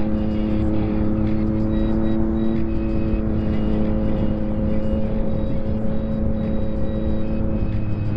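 Yamaha MT-09 SP's three-cylinder engine through a full Akrapovic race exhaust, running under way at a steady engine speed with a loud, even exhaust note.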